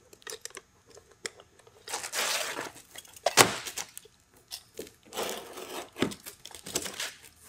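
Utility knife cutting and trimming an asphalt shingle: two gritty scraping strokes of the blade through the granule-covered shingle, with sharp cracks and snaps as the piece is cut off.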